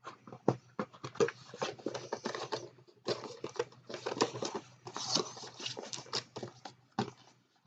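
Plastic model kit in its cardboard box being handled and packed up: a busy run of crinkling, rustling and small knocks, with short pauses.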